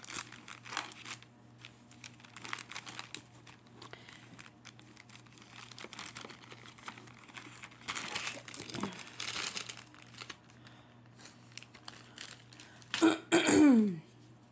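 Plastic packaging crinkling and rustling as the diamond painting kit is handled. Near the end comes a person's loud cough in two bursts, the second falling in pitch.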